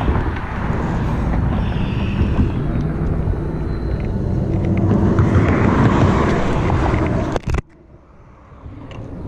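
Road traffic rumbling across the bridge, mixed with wind on the microphone, a vehicle swelling past about five seconds in. A knock comes near the end, and the noise then drops away suddenly.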